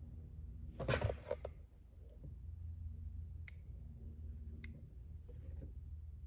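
Soldering gun's transformer humming steadily while in use, with a brief scraping rustle of handling about a second in and a couple of faint clicks later.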